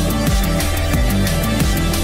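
Electronic industrial music track with a steady driving beat and heavy bass.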